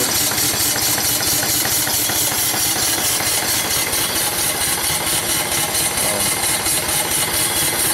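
Small homemade steam engine running steadily, a fast even beat over a constant steam hiss.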